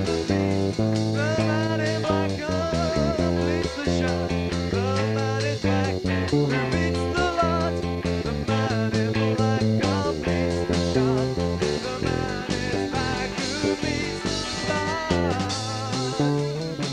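Live rock band playing guitars and bass over a steady beat, with a wavering lead line, on a poor-quality recording.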